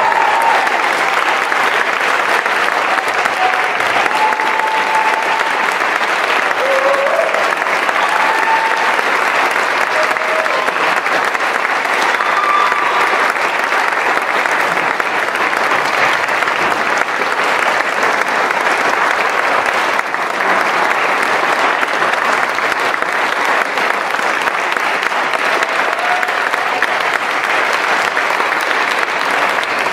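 Audience applauding, a dense, steady clapping, with a few voices calling out from the crowd in the first seconds.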